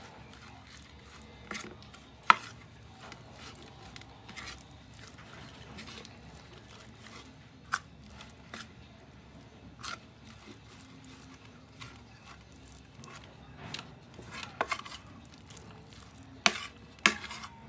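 A fork mashing and mixing corned beef into flour on a plate, dredging the meat for frying, with scattered sharp taps and scrapes of the fork against the plate, a cluster of them near the end.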